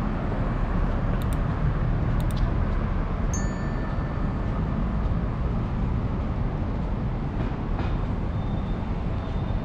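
Steady rumble of city street traffic. A few sharp clicks come between about one and two and a half seconds in, and a short high ding rings about three and a half seconds in.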